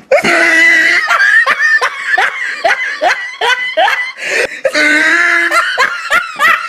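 High-pitched laughter breaking out in a quick run of short bursts, about three a second, then a longer drawn-out note near the end.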